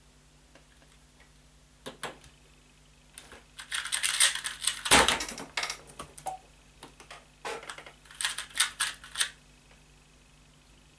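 Laptop keyboard being typed on in two quick bursts of keystrokes, with a louder knock in the middle of the first burst.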